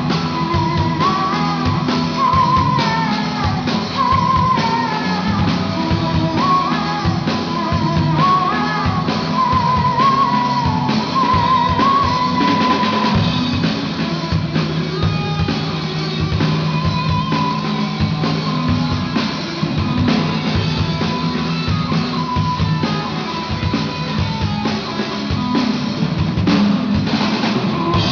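A rock band playing: electric guitar, a drum kit and a singing voice carrying a wavering melody over sustained low notes.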